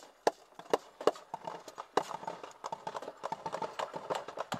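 Sharp cracks at irregular intervals, the loudest five in the first two seconds, among a dense clatter of smaller knocks and rattles. These are the sounds of gunfire and of gear rattling in a Humvee during a firefight.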